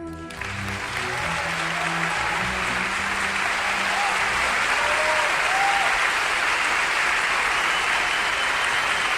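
An audience applauding steadily as a sung song ends, with the band's last held notes dying away in the first few seconds. A few voices call out above the clapping.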